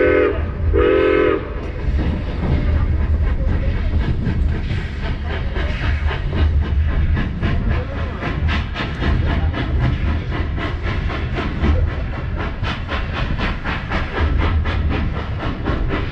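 Steam locomotive whistle sounding two short blasts at the start, over the steady low rumble of a narrow-gauge steam train running. From about six seconds in, a quick regular beat of about four a second comes through from the moving train.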